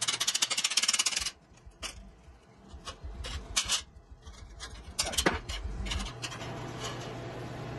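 Steel clinking and scraping as a freshly plasma-cut steel logo piece is worked loose by hand and with pliers from the sheet resting on the table's steel slats: a quick rattle of scraping clicks in the first second or so, then scattered metal clinks and knocks.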